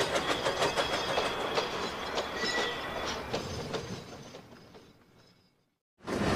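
Railway cars rolling along the track, wheels clicking rapidly over the rails with a thin high squeal, fading away to silence about five seconds in. Another rumbling train sound starts up sharply just before the end.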